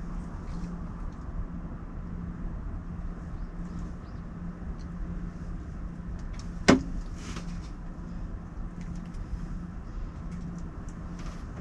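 Steady low rumble of wind on the microphone with a faint hum and scattered light ticks, broken by one sharp click or knock a little past the middle.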